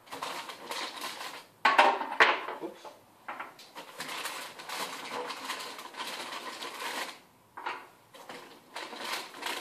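Coconut-shell shisha charcoal cubes being handled and set down one by one on an electric hotplate: a string of light knocks and clacks, the loudest pair about two seconds in.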